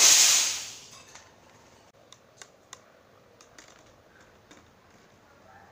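Homemade PVC air rifle firing: a sudden loud blast of air that hisses away over about a second, followed by a few faint light ticks.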